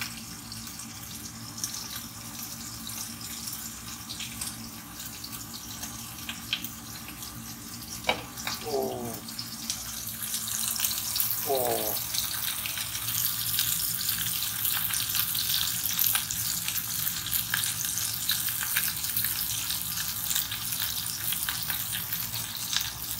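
A carbonated drink poured into a plastic cup in two short pours, about eight and eleven seconds in, each rising in pitch as the cup fills, over a steady low hum. From about ten seconds in, a steady crackling hiss grows louder and continues.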